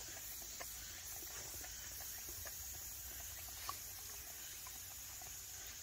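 Dogs chewing and mouthing a cherry tomato taken from a hand: faint, scattered wet clicks and smacks, with one sharper click a little past the middle.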